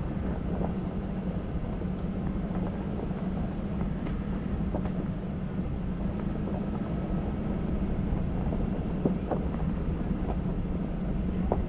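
A vehicle driving slowly along a dirt road, heard from inside the cab: a steady low engine and tyre rumble, with scattered small clicks and knocks.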